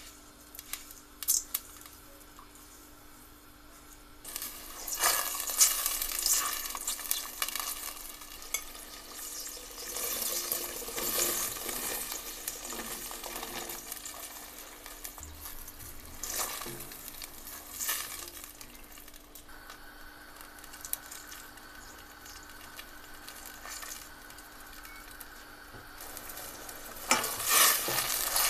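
Vinegar, water and sunflower-oil brine with long green peppers heating in a stainless steel pot, sizzling and bubbling, stirred with a silicone spatula. The sizzle starts about four seconds in and is loudest near the end. A few knocks come near the start, and a steady low hum runs underneath.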